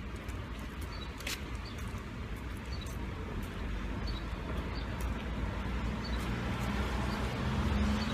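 Outdoor background noise: a steady low rumble with faint short high chirps about once a second, and a motor hum growing louder near the end.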